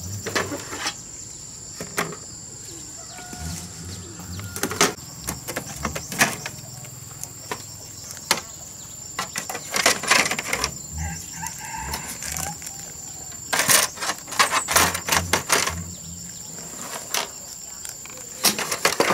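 Rustling and plastic clattering as broken motorbike body panels and scraps are gathered and dropped into a woven bamboo basket, in irregular knocks with the busiest stretches about halfway and toward the end.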